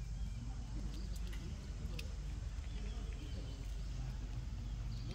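Steady low outdoor rumble with a few faint, short high chirps and clicks scattered through it.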